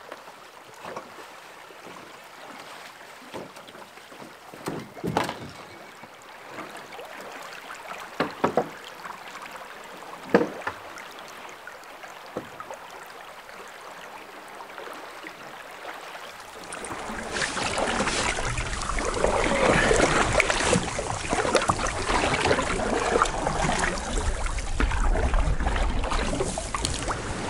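Canoe on the water: occasional knocks and splashes over a faint water hiss, then, after a cut about seventeen seconds in, a louder rough rushing noise with a low rumble.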